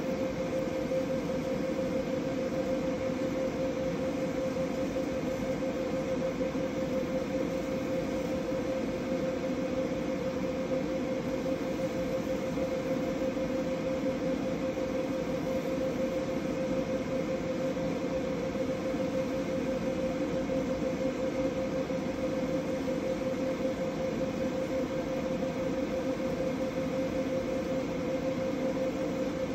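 Fiber laser engraver running as it marks a polymer rifle magazine: a steady, unchanging hum with one strong mid-pitched tone over a noisy hiss.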